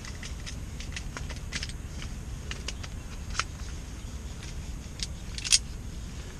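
Folding camp bed being assembled, its legs being pushed onto the frame: a run of small clicks and knocks, with a louder click about three and a half seconds in and the sharpest one about five and a half seconds in, over a steady low rumble.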